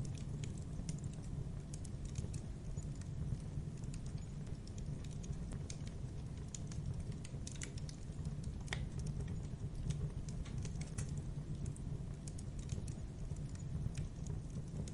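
Fire crackling: irregular sharp snaps and pops over a steady low rumble.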